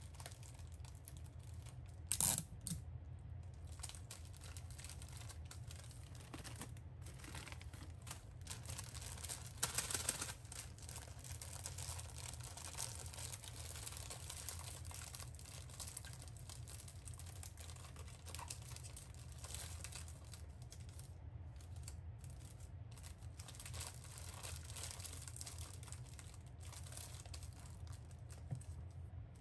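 Clear plastic bags rustling and crinkling as pieces of chiffon rusk are slipped into them and handled, with a sharp crackle about two seconds in and a louder spell of rustling around ten seconds. A steady low hum runs underneath.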